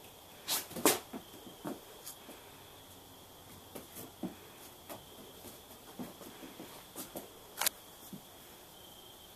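A donkey's hooves knocking and scuffing on the barn floor as it turns and walks, with irregular sharp knocks that are loudest about a second in.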